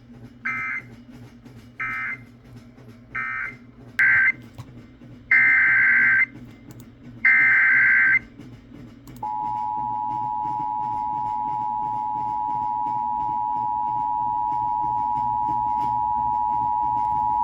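Emergency Alert System signalling: six short bursts of shrill warbling digital data, the last two longer, then, about nine seconds in, the steady two-tone EAS attention signal. The data bursts are the end-of-message code closing one alert and the header opening the next.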